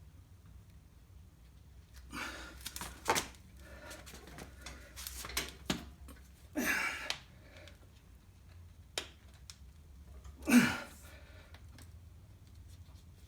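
Hand work fitting a new bandsaw tire onto the wheel with clamps: scattered clicks, scrapes and rubbing. The loudest is a sudden sound about ten and a half seconds in that slides down in pitch.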